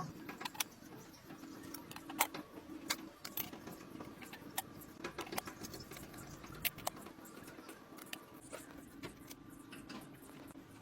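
Irregular sharp metallic clinks and taps of tools and parts being handled, over a steady low hum.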